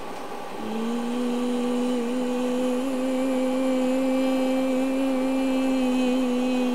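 A person humming one held note without words, the pitch nearly level with a couple of slight wavers; it begins about half a second in.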